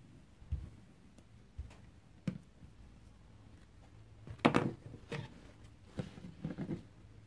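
Small handling knocks on a wooden workbench as a pen is put down and a pair of scissors is picked up, the loudest clatter about four and a half seconds in, then a few short clicks of the scissors near the end.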